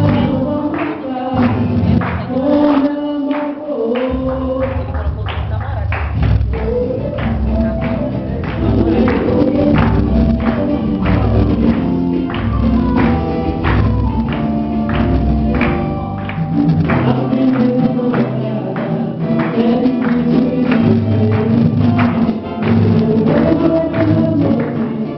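Pagode band playing, with sung vocals over a steady, busy percussion beat led by tambourine.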